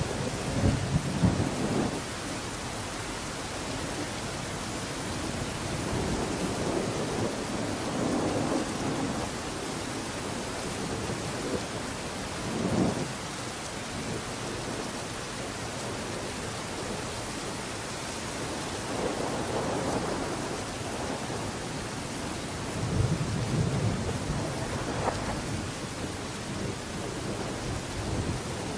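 Steady hiss of background noise, with soft low rumbles swelling up every few seconds.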